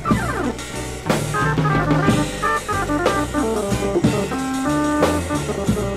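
Instrumental break in a band song: drum kit and bass under a lead of short held notes, opening with a quick run downward.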